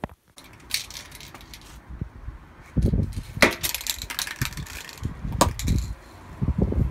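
Aerosol spray-paint can being shaken, its mixing ball rattling inside in irregular metallic clacks, with intermittent low rumbling on the microphone.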